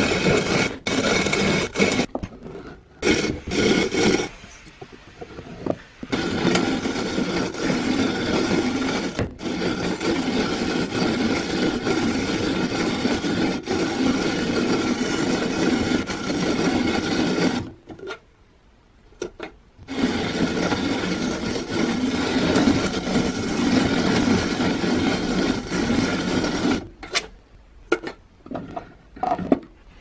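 Vintage hand-cranked coffee grinder with a cast-iron hopper grinding whole coffee beans: a continuous rough, rasping crunch as the crank turns. It stops briefly a few times, the longest break a little past halfway.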